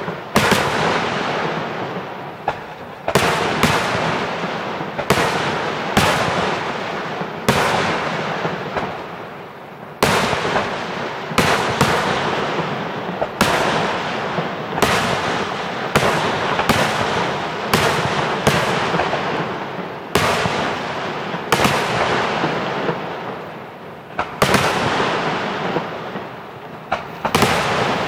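Aerial fireworks shells bursting in a steady series of sharp bangs, one every second or two, each trailing off over a second or so before the next.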